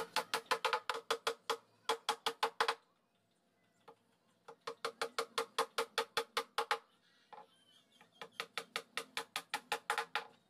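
Hammer driving small nails into a plywood speaker-cabinet panel: three runs of quick strikes, about five a second, with short pauses between them.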